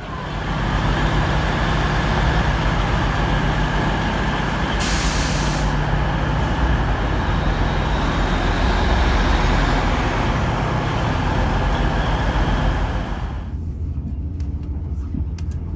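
TransPennine Express diesel train at a station platform, its engine running steadily, with a short hiss of released air about five seconds in. Near the end this gives way to the quieter rumble of the train under way, heard from inside, with faint clicks.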